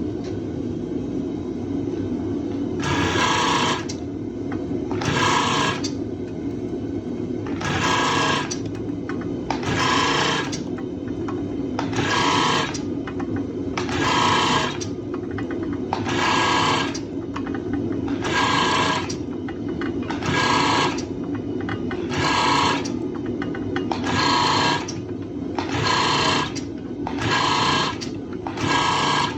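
Mechanical power hammer forging a Damascus steel billet: a steady motor hum, with short bursts of rapid hammer blows about every two seconds from a few seconds in.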